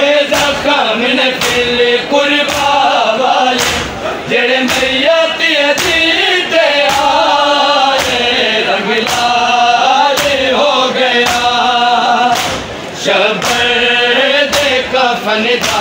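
Men chanting a noha in chorus, marked by a steady rhythm of open-hand chest-beating slaps (matam), a little under two a second.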